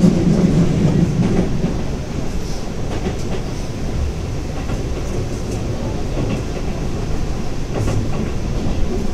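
Keihan limited express electric train running at speed, heard from inside the carriage: a steady rumble of wheels on rail. A low hum fades within the first two seconds, and a few faint clicks follow later.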